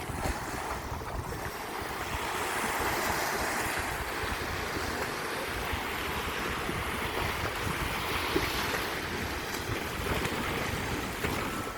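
Sea waves washing onto a beach in a continuous rushing surf, swelling and easing gently, with wind rumbling on the microphone.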